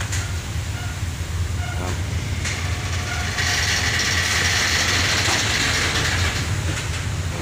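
Steady low drone of a ferry's engines on the enclosed vehicle deck, with short creaks and squeaks from the lashed-down trucks shifting as the ship rolls in high waves. A stretch of hissing noise comes in partway through and fades before the end.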